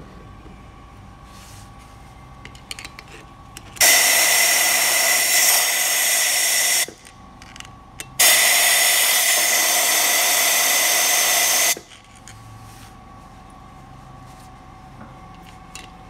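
Compressed-air blow gun hissing in two long blasts of about three seconds each into the ports of a Ford Mondeo 2.0 petrol cylinder head, a test of whether the reworked valves seal against their seats. Each blast starts and stops abruptly, with a few small clicks between them.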